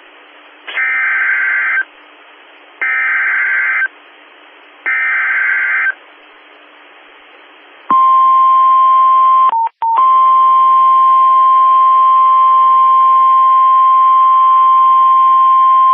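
NOAA Weather Radio Emergency Alert System opening: three one-second bursts of screeching SAME digital header data tones over faint radio hiss, encoding a flash flood warning, followed by the steady NWR warning alarm tone, which has a brief dropout about two seconds after it starts.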